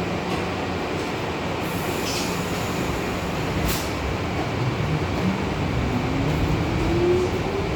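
R62A subway train running, a steady rumble with one sharp clunk a little under four seconds in. Over the last two seconds a motor whine rises in pitch as the train picks up speed.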